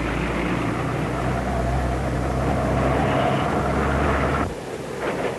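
Street vehicle running: a steady low hum with a whine above it, cutting off abruptly about four and a half seconds in.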